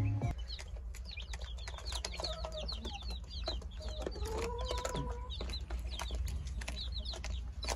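Baby chicks peeping in a brooder: many short, high cheeps overlapping in quick succession, over a low steady hum.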